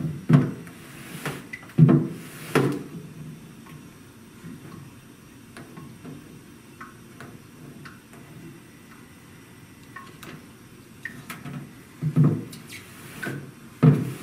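Handheld squeegee knocking and dragging against a plastic squeegee board while water is wiped off a wet photographic test strip. A few sharp knocks come about a second in and again near the end, with lighter clicks and rubbing between.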